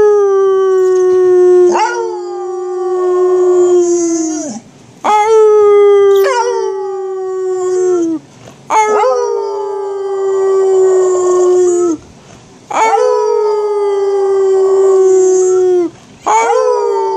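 A beagle howling: a run of long, drawn-out howls, each about three to four seconds, starting a little higher and sliding slightly down before breaking off, with short pauses between. About four full howls, and a fifth begins near the end; a couple of them are overlapped by a second howling voice that starts partway through.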